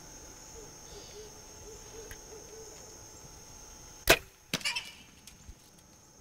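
Compound bow (Diamond Carbon Deploy) shot at a feral hog. About four seconds in the string releases with one loud, sharp crack. About half a second later a cluster of sharper cracks follows as the arrow strikes the hog. A steady high insect buzz runs underneath.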